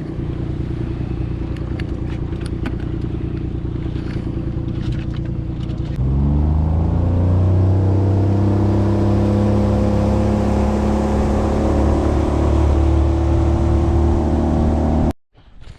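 Engine running steadily, then revving up about six seconds in and holding at a higher, louder steady speed. It cuts off suddenly just before the end.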